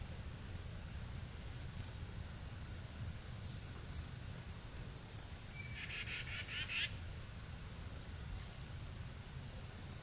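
Small songbirds calling over a low, steady background rumble: a scatter of short, high chip notes, and about six seconds in a brief buzzy run of quick notes lasting about a second.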